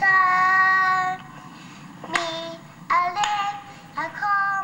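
A young girl singing an English song slowly, holding the first note for about a second before going on in shorter phrases. It is played back from a home video recording.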